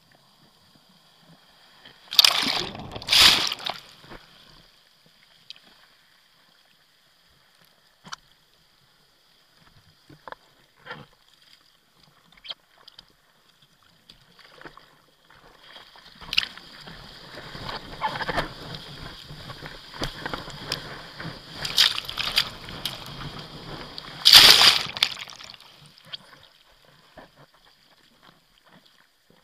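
Whitewater splashing and rushing against a bodyboard and its board-mounted camera at the water surface. There are two loud splashes about two seconds in, then scattered small splashes. In the second half comes a longer rush of churning water with two loud surges before it fades.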